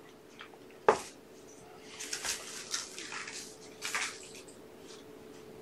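Kittens playing on carpet and a cat bed: scattered scratchy rustles and scuffles, with one sharp knock about a second in, over a faint steady hum.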